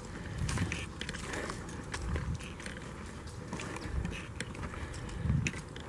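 Footsteps crunching on loose gravel and dry leaves, about one slow step a second.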